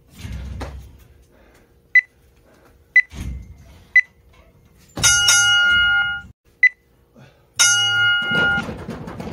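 Gym interval timer: three short beeps a second apart counting down, then a long buzzer tone marking the end of a round. Another short beep and a second long buzzer follow. In the first seconds feet land from jumps on the floor mats with low thuds, and near the end battle ropes slap the floor.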